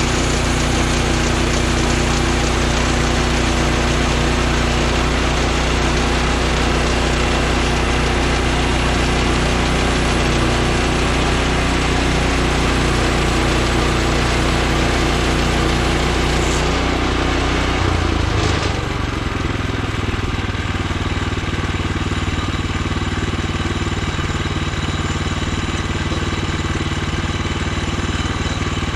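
Woodland Mills HM126 portable bandsaw mill's gas engine running steadily, with the band blade running. About 18 seconds in, the engine note drops and the sound gets a little quieter, then runs on steadily at the lower speed.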